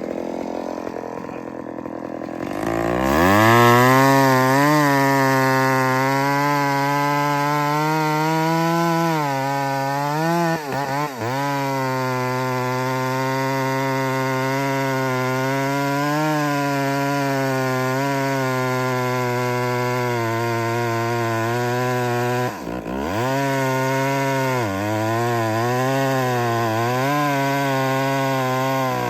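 Two-stroke chainsaw revving up about three seconds in and cutting wood under load, its pitch sagging and recovering as the chain bites. Twice, near the middle and again later, the engine briefly drops off and picks back up.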